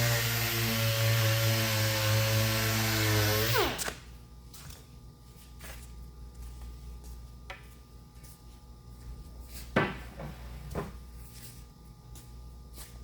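Electric sander running steadily, then switched off about four seconds in, its pitch falling as it spins down. After that come a few light knocks and taps, one louder about ten seconds in.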